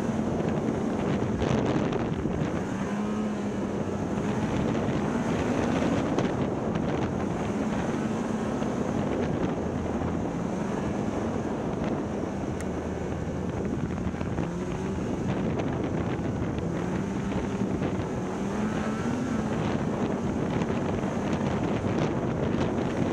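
Snowmobile engine running at a cruise of about 30 mph, its pitch wavering gently up and down with the throttle, with wind rushing over the microphone.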